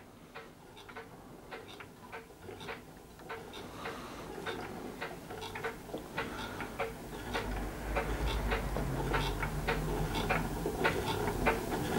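Old mains-powered solenoid beam engine running: a steady series of light clicks, a few per second, from its mechanism working with each stroke, with a low hum coming in about two-thirds of the way through.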